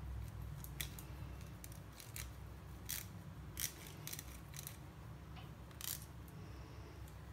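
Handheld flat metal grater shredding cheese: short, irregular scraping strokes with light metal ticks, over a low steady hum.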